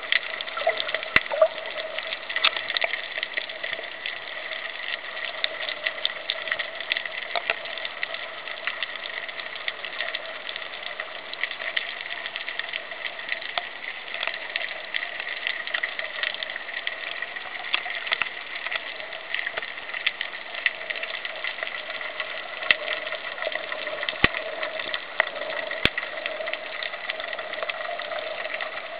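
Underwater ambience picked up by a submerged camera: a steady wash with a constant hum, scattered with frequent crackling clicks.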